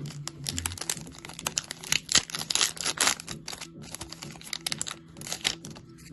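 Pokémon trading-card booster pack wrapper crinkling and tearing as it is opened by hand, in a dense run of crackles that stops near the end.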